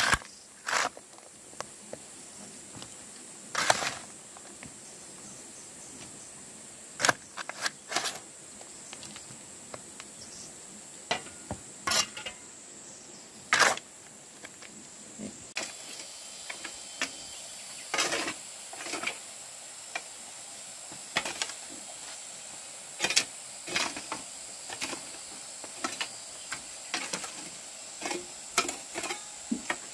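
Irregular knocks, clicks and short scrapes of hand work, one every second or two, over a steady high hiss.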